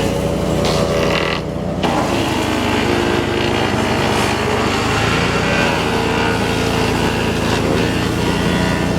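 GeoTech PCS70 BS petrol wood chipper-shredder running at full speed, its engine pitch wavering slightly, with a brief dip in the sound about a second and a half in.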